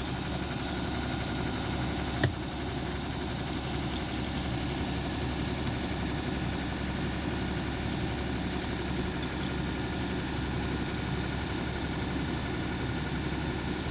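Engine idling steadily, with one sharp click about two seconds in.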